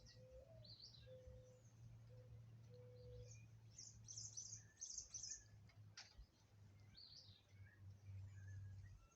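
Faint bird chirps in short high bunches over a low steady hum, with one short click about six seconds in.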